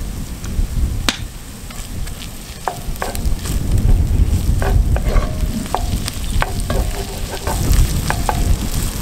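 Wooden spoon stirring and scraping frying onions, chilli and sliced cabanossi with tomato paste around a cast-iron Dutch oven, with the sizzle of the hot oil and clicks of the spoon against the iron. Wind rumbles on the microphone.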